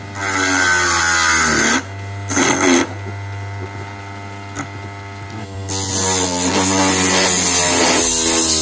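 Small 12 V DC motor of a homemade wood lathe running, its whine dipping and rising in pitch as the blade bites into the spinning wooden workpiece.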